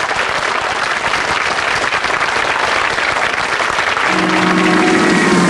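Studio audience applauding. About four seconds in, a steady held electric note enters over the applause as the band starts its song.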